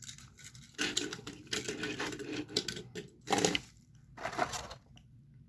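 Die-cast toy trains being handled: a quick run of small clicks and rattles from about a second in, then two short bursts of handling noise.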